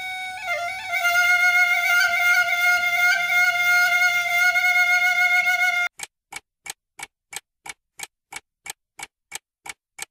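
Balinese bamboo suling flute holding one long note, with a brief bend in pitch in the first second, then stopping abruptly about six seconds in. A run of short, evenly spaced ticks follows, about three a second.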